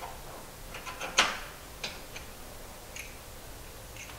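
Sharp metallic clicks and clinks as a piston and connecting rod assembly is handled on a workbench during engine assembly. The loudest clink comes a little over a second in, with a few lighter ticks scattered after it.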